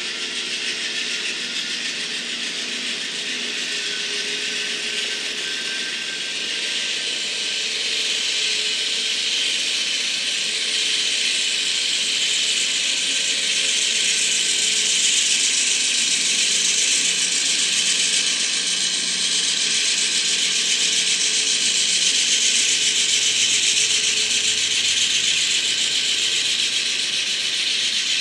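Model train running on layout track: a steady mechanical rattle of the locomotives' gear drives and the cars' wheels on the rails, getting louder about eight seconds in as the train comes closer.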